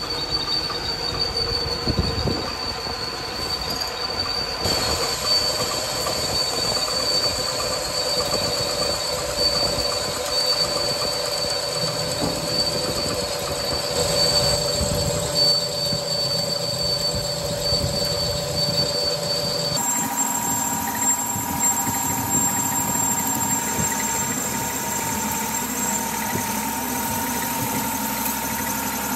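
Engine lathe turning a forged steel truck axle spindle, the cutting tool shaving the spinning workpiece with a steady high-pitched squeal over the machine's running noise. The pitch of the whine shifts abruptly about two-thirds of the way through.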